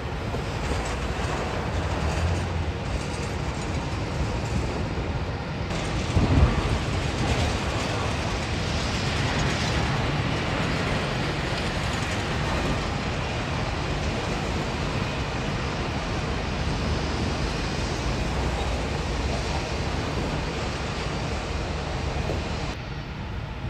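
Jet airliner engines at takeoff power as it rolls and lifts off, mixed with the steady noise of cars passing close by on the road. A single thump about six seconds in.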